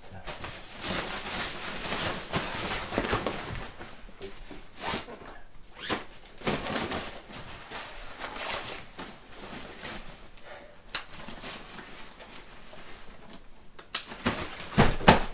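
Clothing and backpack fabric rustling in bursts as clothes are stuffed into a backpack and handled. There is a single sharp click about eleven seconds in, and a cluster of loud, sharp clicks and knocks near the end.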